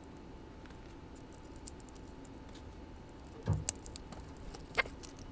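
Faint clicks and taps of a plastic model locomotive chassis and a needle-tip oil bottle being handled, with a soft thump about three and a half seconds in and a few sharper clicks after it.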